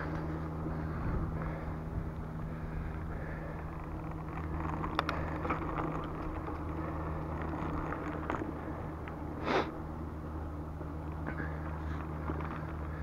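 Bicycle riding along a paved trail: a steady low hum of tyres rolling on asphalt, with a few clicks and rattles from the bike, the loudest about two-thirds of the way through.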